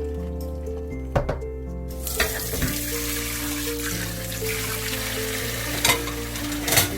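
A steady kitchen hiss starts about two seconds in, with four sharp clanks, over background music.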